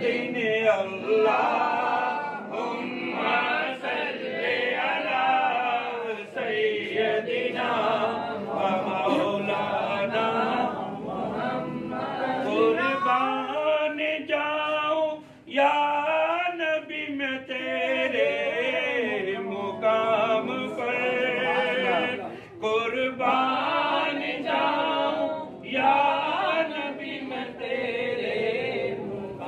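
Men's voices chanting a devotional recitation together, melodic with wavering pitch, with brief breaks about halfway through and again later.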